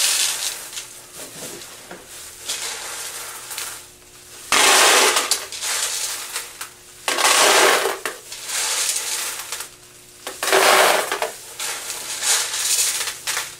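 Handfuls of M&M's being tossed and mixed by hand in a stainless steel pot. The hard-shelled candies rattle against each other and the pot, and the plastic gloves crinkle, in repeated surges about a second long.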